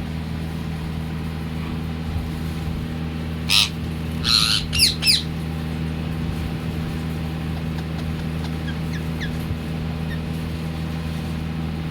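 Pet parrot squawking: one harsh call about three and a half seconds in, then a quick run of three or four calls, and a few faint chirps later, over a steady low hum.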